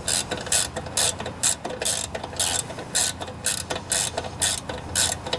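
Ratchet wrench clicking in quick, regular strokes, about three clicks a second, as it tightens the bolt holding a Tecumseh mower engine's oil fill tube down on its rubber gasket.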